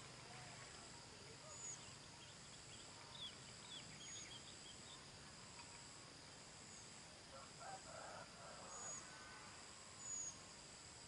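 Quiet rural ambience: an insect's faint high trill pulsing about once a second, with a few faint bird chirps a couple of seconds in.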